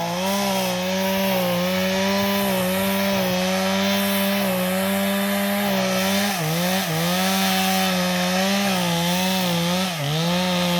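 Chainsaw held at full throttle, cutting into a tree trunk during felling. Its steady high whine dips in pitch briefly about six seconds in and again near the end as the chain loads in the cut.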